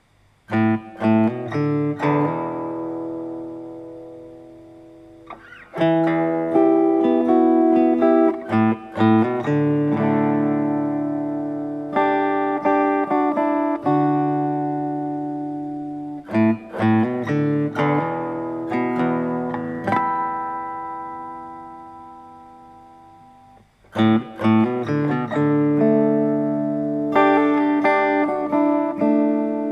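Solo guitar playing a song intro arranged to take the place of the keyboard and piano parts. Picked notes and chords are left to ring and fade, in phrases a few seconds apart.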